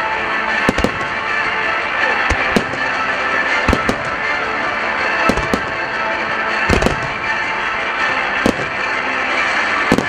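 Aerial firework shells from a computer-fired starmine barrage bursting, about a dozen sharp bangs at uneven intervals. Music plays steadily underneath, set to the display.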